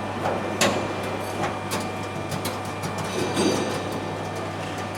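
Scattered sharp clicks and light metallic knocks of hand work on aircraft sheet metal, such as gripper pins (Cleco temporary fasteners) being handled and fitted, over a steady low hum.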